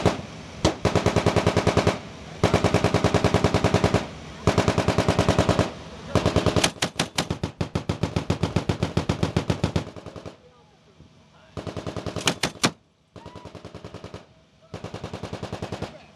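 Mk19 40mm grenade machine gun firing bursts of automatic fire, a steady rapid chain of heavy shots. Several short bursts are followed by a longer one in the middle, then shorter, weaker bursts with gaps near the end.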